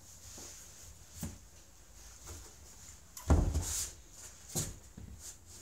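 A toddler's hand slapping and tapping a picture wall chart: a few scattered knocks, the loudest a little over three seconds in.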